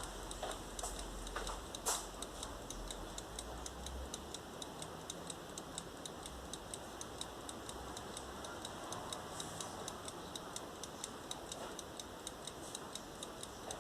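Faint, steady clockwork ticking, a few ticks a second, with a low hum in the first few seconds.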